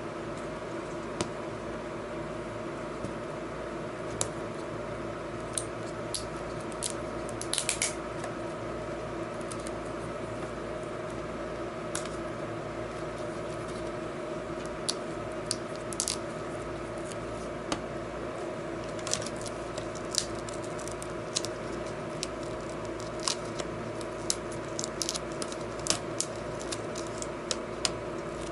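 Scattered small clicks and crackles of fingers working the display cable's connector and its sticky tape loose on the back of a thin laptop LCD panel, more frequent in the last third, over a steady background hum.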